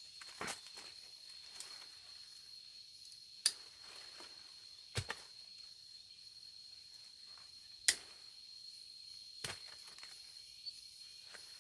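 Sharp snaps, about five of them a second or more apart, as cocoa pods are cut from the tree, over a steady high insect drone.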